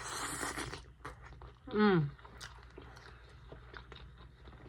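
Close-up chewing and biting of sauced chicken wings, with scattered small wet clicks, a brief noisy slurp at the start, and a short falling "mm" hum about two seconds in.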